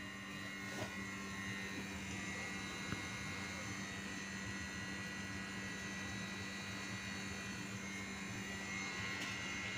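Steady low machine hum with a faint constant high-pitched whine running alongside it, with no distinct events.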